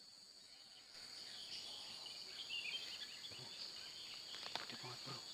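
Faint, steady high-pitched drone of insects, with short chirps and a single sharp click about four and a half seconds in.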